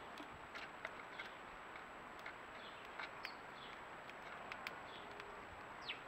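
House sparrows feeding at a seed tray feeder: scattered small clicks of beaks pecking seed on the tray, with brief high chirps that fall in pitch every second or so, all faint over a steady hiss.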